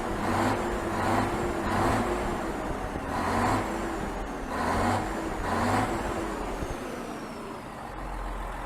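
Scania 112 truck's straight-six diesel on a straight-through exhaust, revved in a series of short blips for about six seconds, then settling back to a steadier run. The engine has just had its injection pump and injectors regulated.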